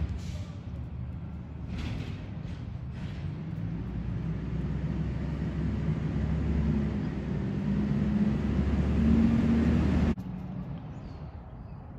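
Motor vehicle engine rumble on the street, slowly getting louder before cutting off abruptly about ten seconds in.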